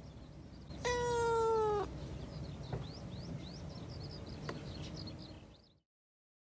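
A calico cat meowing once, a single call about a second long whose pitch sags slightly toward the end.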